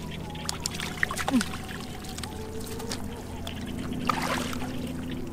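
Shallow muddy water trickling and splashing in short bursts as someone wades and scoops through it with a hand net and bare hands, over a steady low hum.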